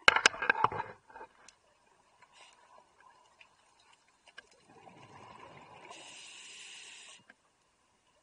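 Scuba diver's regulator breathing underwater. Exhaled bubbles rush out in a loud crackling burst during the first second, and a quieter spell of breathing noise follows about five seconds in, with a hiss near the end.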